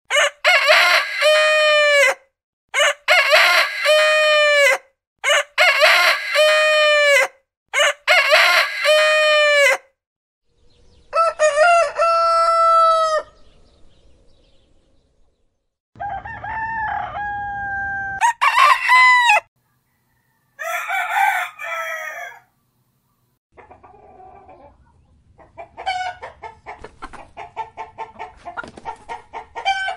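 Roosters crowing, one long cock-a-doodle-doo after another: four nearly identical crows in quick succession, then four more crows of differing pitch. The last several seconds are a quick run of short repeated calls.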